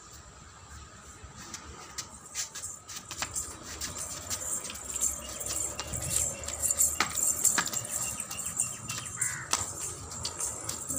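A wooden silambam staff being twirled and swung: scattered sharp clicks and knocks, with a fluctuating rush of noise that grows louder over the second half.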